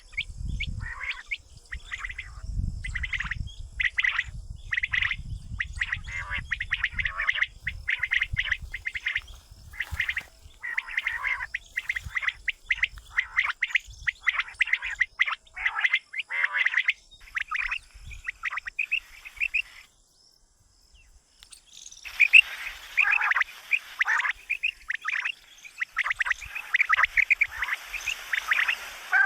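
Quail calling: rapid runs of short chirping notes, with a low rumble underneath for the first several seconds. The calls break off about twenty seconds in and resume a couple of seconds later, busier and over a hiss.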